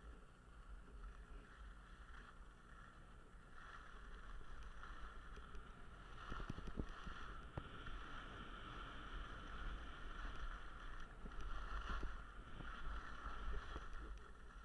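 Skis sliding and scraping over packed snow on a downhill run, with wind rumbling on the microphone; it grows louder a few seconds in as speed picks up, with a few short clicks along the way.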